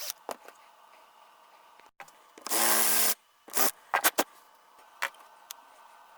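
Workshop handling sounds of wood and tool parts: scattered clicks and knocks, with a brief loud rubbing or scraping burst of about half a second some two and a half seconds in and a shorter one a second later.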